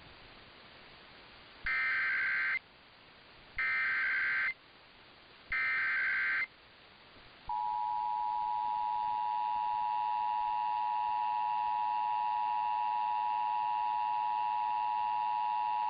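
Emergency Alert System header: three short bursts of SAME digital data tones, each just under a second long and about two seconds apart. About a second later the steady two-tone EAS attention signal begins and holds, announcing the start of an alert, here a severe thunderstorm warning.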